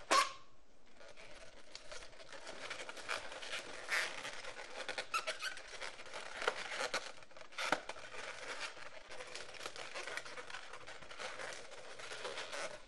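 Inflated latex 260 twisting balloons being handled and shifted into place, rubbing against each other in short, irregular scratchy strokes, with a sharp snap right at the start.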